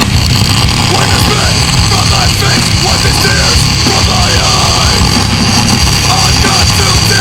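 Loud heavy metal music playing steadily.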